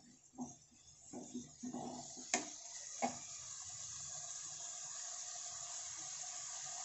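Vegetable noodles and soy sauce sizzling steadily in a metal kadai over a high gas flame. In the first two seconds a wooden spatula scrapes and stirs, with two sharp knocks against the pan a little after two and three seconds in.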